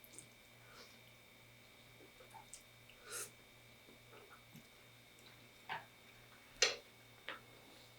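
Faint eating sounds of a person eating instant ramen noodles: a few short, wet mouth clicks and smacks, the loudest about two-thirds of the way in, over a faint steady high-pitched whine.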